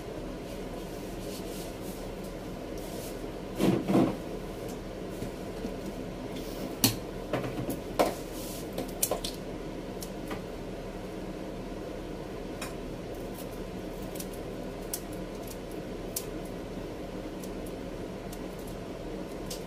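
Kitchen scissors snipping raw shell-on shrimp, with small clicks and handling sounds against a stainless steel bowl, and a couple of louder knocks about four seconds in. A steady low hum runs underneath.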